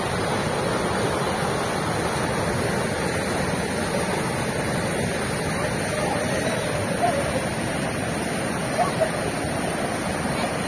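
Muddy floodwater rushing steadily through a stone culvert under a bridge. A few faint, brief sounds rise over it in the second half.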